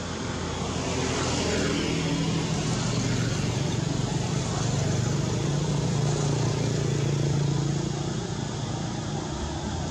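A motor vehicle's engine running steadily, swelling louder about a second in and easing slightly near the end.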